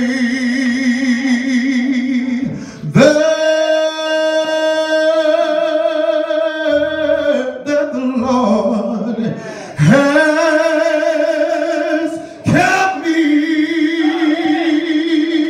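A man singing a slow gospel song solo into a microphone. He holds long notes with a wavering vibrato, in several phrases with short breaks between them.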